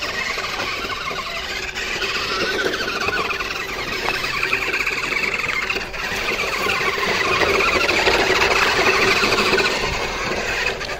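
Electric RC monster truck's motor and gears whining steadily as it drives over rough ground, with the rattle of its tyres and chassis on the terrain. It gets louder in the second half.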